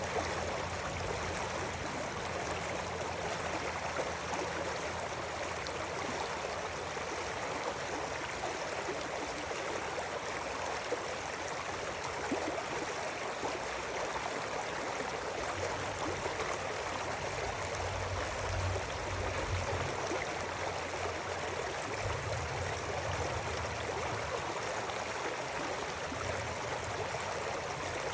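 River water flowing steadily over rocks, an even rushing and babbling with a low rumble that swells now and then.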